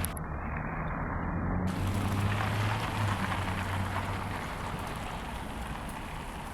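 Steady rushing noise of wind through autumn leaves, with leaves rustling. A low hum, like a passing vehicle, sits under it from about a second in and fades out after about four seconds.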